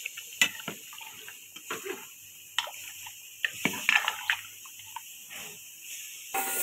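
Metal slotted spoon stirring watery meat curry in a large aluminium pot: liquid sloshing with irregular clinks and knocks of the spoon against the pot. Near the end a steady hiss comes in.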